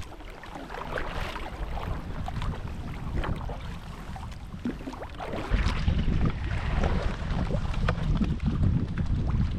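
Wind buffeting the microphone on open water, with water splashing and lapping; the low wind rumble gets much heavier about halfway through.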